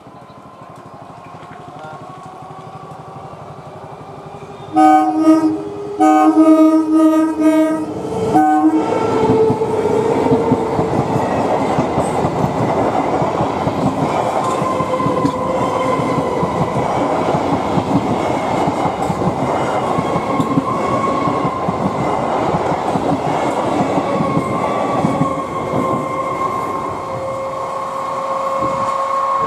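Electric multiple unit (EMU) local train approaching and sounding its horn in several blasts, starting about five seconds in. It then passes close at speed with a loud, steady rumble and wheel clatter, and a steady whine runs over the noise.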